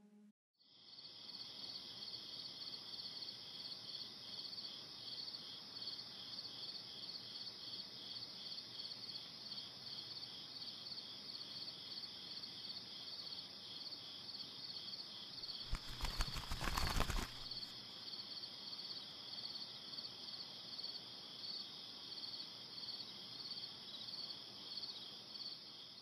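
Crickets chirring steadily, a fast high-pitched pulsing. About sixteen seconds in, a brief rough burst of noise lasting about a second and a half.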